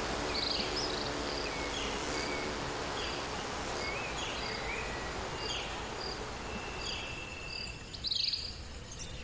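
Tropical outdoor ambience: small birds chirping in short repeated calls over a steady insect hiss, with one louder, sharper call about eight seconds in.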